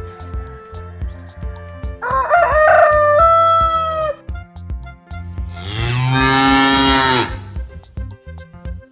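A rooster crowing once, its call ending in a long held note, followed about two seconds later by a cow mooing once, loud and drawn out, both over a steady background music beat.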